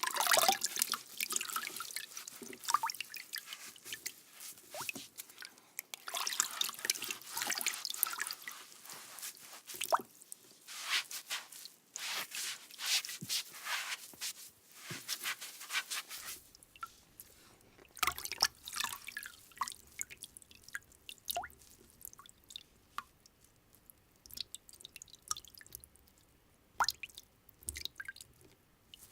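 Hands being washed and scrubbed with water: wet rubbing in repeated bursts, thinning after about sixteen seconds to sparser drips and small wet sounds over a faint low hum.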